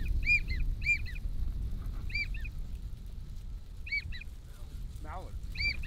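Drake wigeon whistles: short high whistled notes that rise and fall, three in quick succession at the start, then single whistles a second or two apart. A lower, falling duck call comes in about five seconds in.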